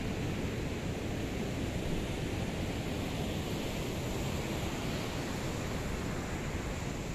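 Steady outdoor wind and surf noise: an even rush with a deep rumble of wind buffeting the microphone.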